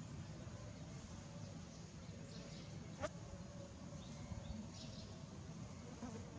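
Quiet outdoor ambience with a steady low rumble, a few faint high chirps, and one sharp click about three seconds in.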